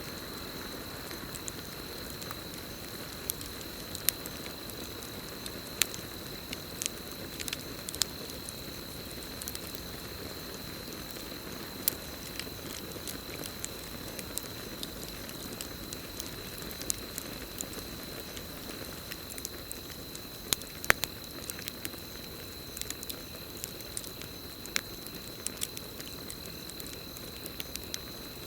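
Campfire crackling, with irregular sharp pops and snaps over a steady hiss of burning wood. A continuous high cricket trill runs underneath.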